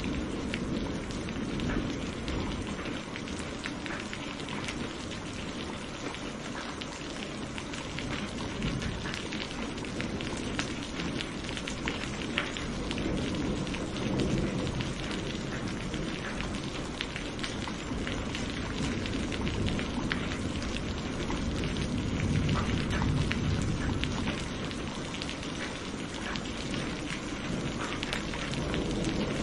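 Steady rain with a patter of close individual drops. A low roll of distant thunder fades out at the start and swells again about two-thirds of the way through.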